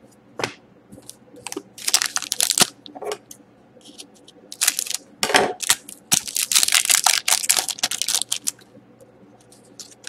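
Foil wrapper of an Upper Deck Artifacts hockey card pack crinkling and tearing as it is opened, with cards sliding against each other. It comes in several bursts, the longest about six to eight seconds in.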